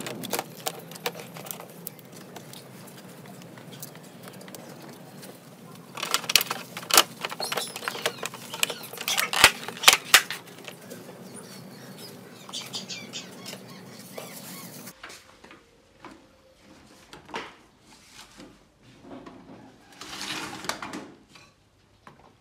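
Clicks, taps and knocks of the monitor's metal and plastic parts being handled and fitted together, with a dense run of sharp clicks about six to ten seconds in. After a change about fifteen seconds in, fainter scattered knocks and a short rustle.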